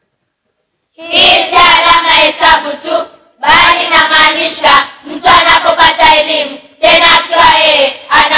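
A group of children singing together in phrases, starting about a second in, with short breaks between lines.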